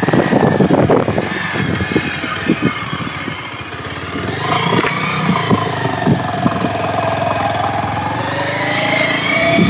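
Bajaj Pulsar 150's freshly rebuilt single-cylinder engine running while the motorcycle is ridden. Its pitch falls and then rises again in the second half as the bike eases off and picks up speed. There are scattered knocks in the first few seconds.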